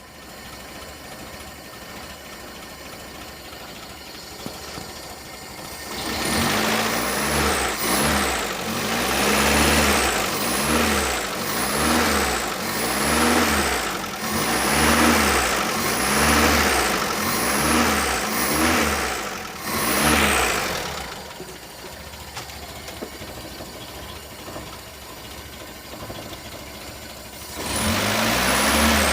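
Petrol engine of a Mitsubishi L300 idling, then revved in quick blips about once a second for around fifteen seconds, each blip carrying a rising and falling high whistle. It drops back to idle and is revved again near the end. The engine is tuned to sound like a Mitsubishi Canter truck.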